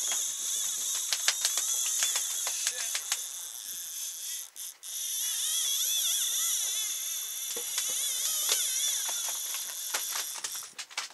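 Conventional fishing reel winding and its drag ratcheting in a rapid clicking whine as a hooked albacore tuna pulls against the bent rod, briefly cutting out about four and a half seconds in.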